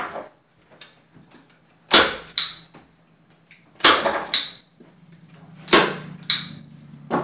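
Manual staple gun firing staples through fabric into a chair seat's wooden base: a sharp clack about every two seconds, most of them doubled, with the second clack ringing briefly like metal.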